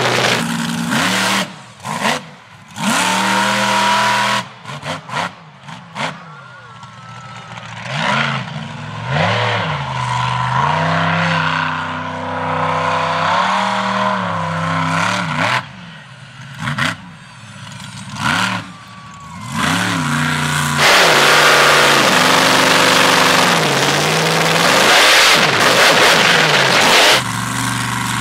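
Monster truck engine revving hard and dropping back again and again, with short sharp throttle blips, then a long loud stretch at high revs near the end as the truck runs across the field.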